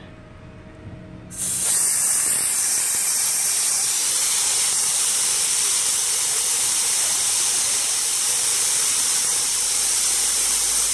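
Compressed air hissing out of a truck tyre's valve stem held open by hand. The hiss starts suddenly about a second and a half in and stays steady and loud. The tyre is being deflated to make its pressure sensor register a drop during a tyre-pressure-monitoring relearn.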